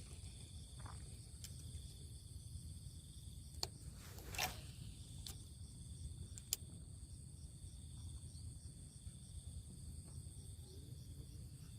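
Steady chorus of insects chirring with high pulsing tones, over a low rumble. A few sharp clicks break through, with a short whoosh about four seconds in.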